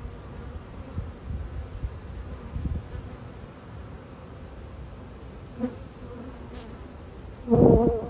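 Honeybees buzzing at the hive entrance. A brief buzz passes about two-thirds of the way through, and a much louder one near the end, as a bee flies close by.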